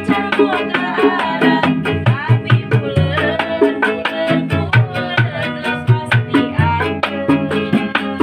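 Street musicians performing: a voice singing a wavering, ornamented melody over a steady beat of hand drum and bass, with string accompaniment.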